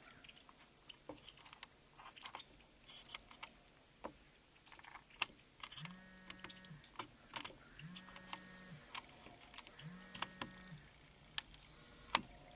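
Sharp clicks and light handling noise from a handheld camcorder, with three steady, level motor whines of about a second each, a second or so apart: the lens zoom motor running as the shot closes in.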